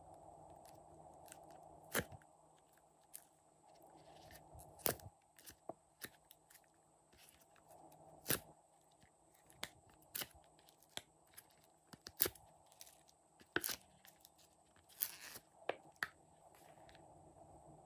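Irregular sharp clicks and taps, a dozen or more, as soft blue balls are pressed out of a plastic mold and set down in a tray of slime.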